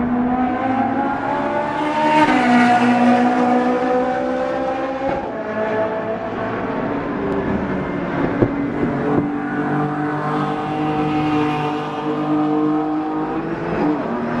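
Race-prepared track cars' engines running hard as they go through a corner, the engine notes rising and stepping in pitch with gear changes, with a single sharp crack about eight seconds in.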